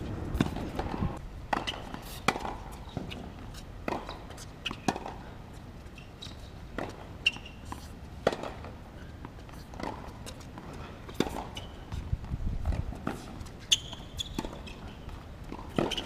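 Tennis ball struck by racquets and bouncing on an outdoor hard court during a rally: a string of sharp pops, about one every second or so, with footsteps on the court between them.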